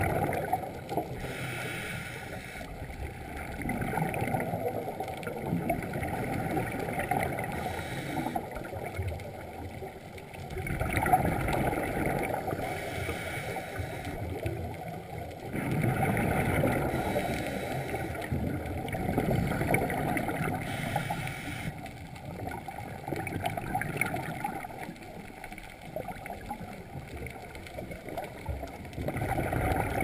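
Scuba diver breathing through a regulator underwater, heard from the diver's camera: exhaled bubbles rumble and gurgle in regular swells about every four to five seconds, between patches of hiss.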